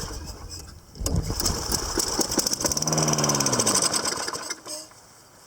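Toro Recycler's 6.5 hp Tecumseh lawn mower engine being pull-started on a shot of carburetor cleaner. It fires and sputters for about three seconds, its pitch rising and then falling, and dies out about four and a half seconds in. It catches only on the cleaner, typical of a fuel-related problem.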